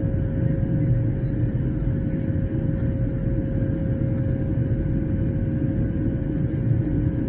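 Airliner cabin noise in flight: a steady low rumble of engines and airflow, with a constant tone running through it.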